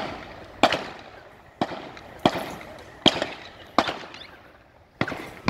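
Distant gunfire: about six single shots spaced irregularly, most under a second apart, each a sharp crack trailing a short echo.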